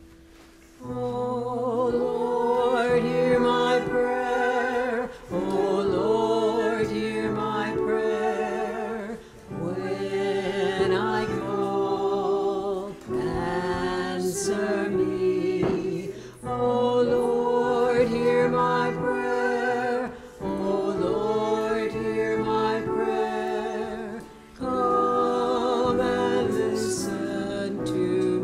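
Voices singing a hymn with piano accompaniment, in phrases of a few seconds each separated by brief breaks.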